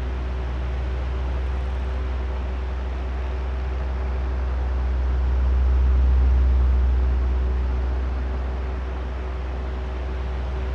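Oscillating electric fan running: a steady low drone with a faint motor hum, swelling louder once near the middle and easing off again as the head turns back and forth.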